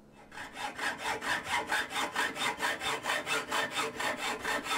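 Hacksaw cutting aluminium tubing in fast, even back-and-forth strokes, about four a second, starting a moment in.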